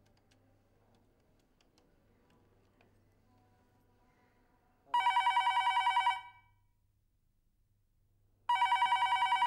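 Electronic ring of a landline desk telephone being called: two rapidly warbling rings of about a second each, the second starting about three and a half seconds after the first.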